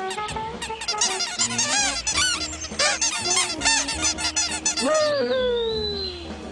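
A flock of small cartoon birds squawking and chattering in quick overlapping calls over a music score, ending in a long falling squawk about five seconds in.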